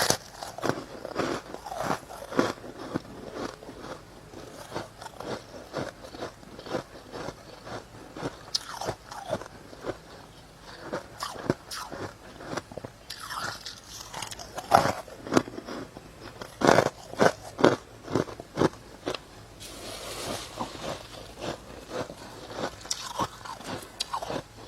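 Close-up biting and chewing of soft, powdery freezer frost: a rapid, irregular run of crisp crunches in the mouth.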